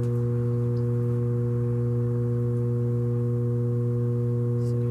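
A steady low-pitched hum with several overtones, holding one pitch and level throughout.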